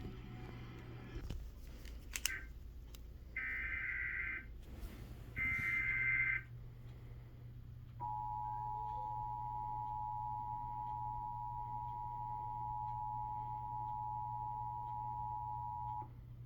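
Emergency Alert System test signal: three short bursts of the SAME digital header's two-pitch data screech, then, about eight seconds in, the steady two-tone attention signal held for about eight seconds before cutting off.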